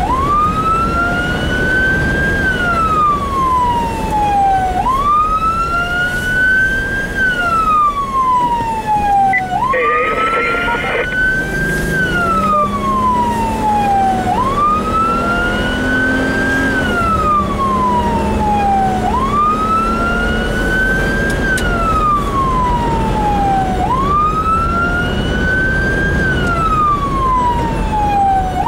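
Siren of a fire-rescue vehicle on an emergency response, sounding a steady wail: the pitch climbs for about two and a half seconds, then falls away, over and over, with the vehicle's engine running underneath. A short burst of a different, higher tone cuts in about ten seconds in.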